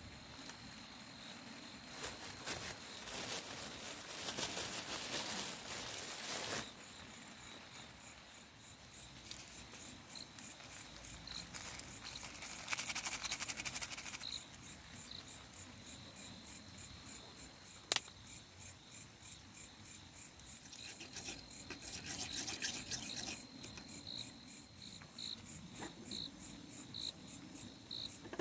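Insects calling: a steady high whine with short chirps repeating faster than once a second, and a rasping buzz that swells from about two to six seconds in and again around twelve to fourteen seconds. A single sharp click about eighteen seconds in.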